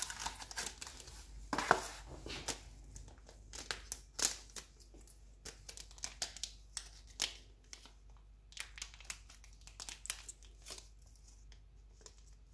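Gloved hands handling a pregnancy test's cardboard box and tearing open the test strip's sealed wrapper: an irregular run of crinkles, rustles and small tearing sounds, a few of them louder.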